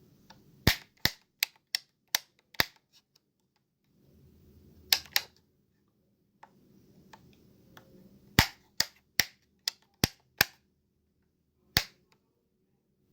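Wall light switch flicked on and off repeatedly, sharp plastic clicks: a quick run of six, a pair about four seconds later, another run of six, and a single click near the end.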